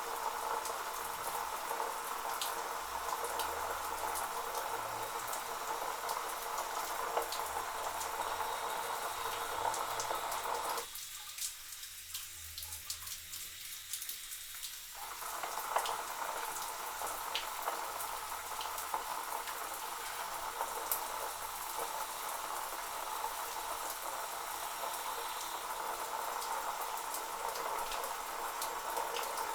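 Electric shower head (the "suicide shower" type with a built-in heater) running, water spraying steadily with scattered small drips and crackles. About eleven seconds in, the spray sound thins out for about four seconds, then comes back.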